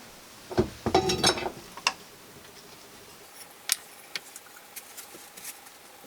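Hard objects knocking and clattering as tools and wood are handled and set down: a burst of knocks with a brief metallic ring about a second in, then a few scattered light clicks.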